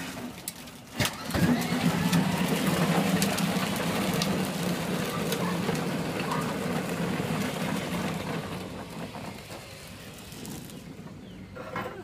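Child's battery-powered ride-on toy car starting about a second in, its electric motor humming steadily as it rolls along the driveway, then fading as it moves away.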